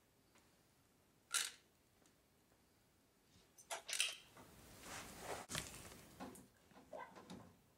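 A caulking gun clicking as a bead of waterproof caulk is run along the panel's edge. There is one sharp click about a second in, then, from the middle on, a run of softer clicks and rubbing.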